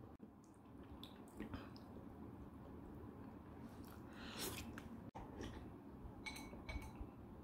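Quiet sounds of eating udon with chopsticks from a ceramic bowl: a few light clicks, and short wet noises of the noodles and broth, the most distinct about four seconds in as the noodles are lifted.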